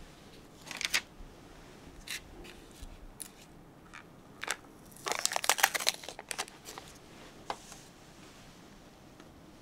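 Small objects being handled at a breakfast table: scattered light clicks and taps, with a dense burst of crinkling and clicking about five seconds in.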